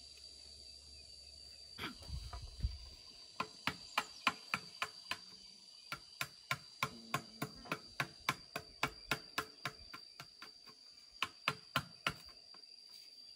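Quick, evenly spaced knocks of a tool striking bamboo, about three or four a second, in three runs with short pauses, as bamboo is worked by hand. Insects keep up a steady high drone underneath.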